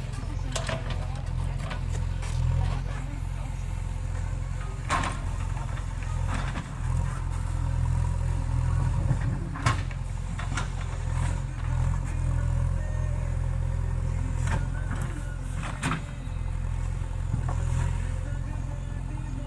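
JCB 3DX backhoe loader's diesel engine running steadily under work, dipping briefly a few times, with several sharp knocks from the working machine.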